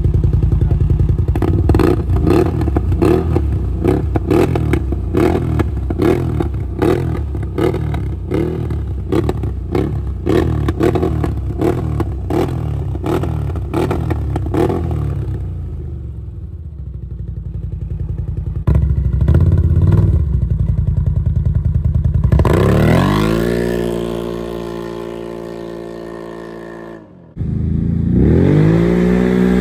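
V-twin engine of a CFMOTO third-generation 850/1000 quad, running through a stainless-steel aftermarket dual exhaust: for the first fifteen seconds it is blipped in quick repeated revs, about one and a half a second, then drops to idle. After that it revs up and down in rising and falling sweeps as the quad is ridden away and past.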